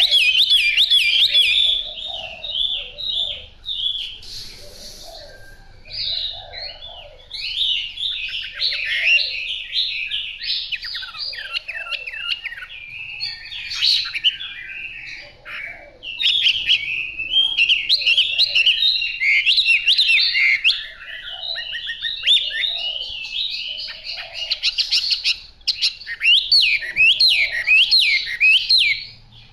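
A caged Chinese hwamei singing a long, varied run of loud whistled phrases. It goes quieter for a few seconds near the start, then sings almost without a break.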